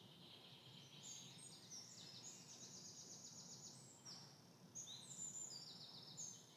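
Faint birdsong: several songbirds singing overlapping high, fast trills of rapidly repeated notes, over a low steady hum.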